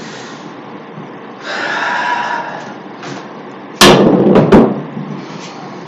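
Pool balls knocking: one loud sharp clack a little past halfway, then two more knocks in quick succession, with a short ring after each.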